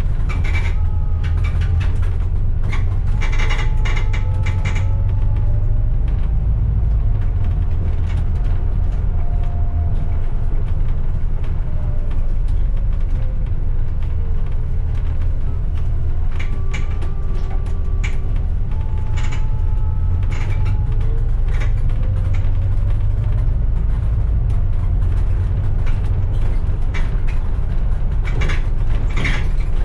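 Service bus driving along a town street: a steady low engine rumble with a faint whine that glides up and down as it speeds up and slows, and scattered rattles and creaks from the bodywork.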